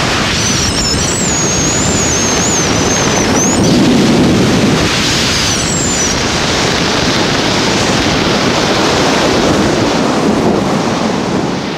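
Strong wind rushing over a helmet-camera microphone as a parachutist flies the canopy down fast to a swoop landing, a loud, steady rush. A thin wavering high whistle rides on it for the first few seconds and again briefly about six seconds in.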